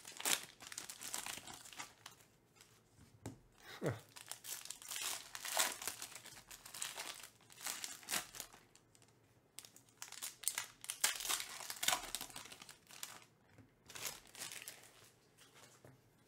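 Foil wrapper of a trading-card pack being torn open and crinkled by hand, in irregular bursts of crackling.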